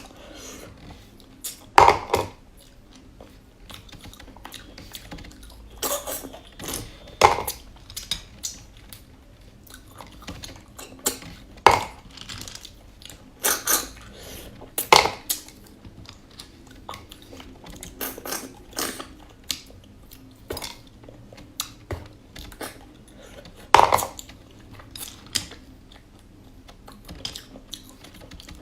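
Irregular clinks and clatter of utensils against dishes, sharp knocks at uneven intervals, some ringing briefly, with some chewing.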